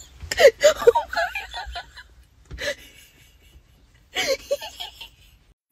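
A person laughing in three short bouts of quick, repeated 'ha' pulses, the first and longest right at the start, a brief one in the middle and another about four seconds in.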